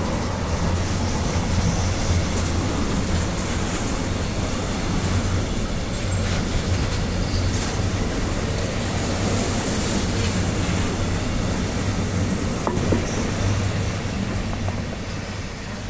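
Container freight wagons rolling past on the nearest track: a steady rumble and clatter of wheels on rail, easing off slightly near the end.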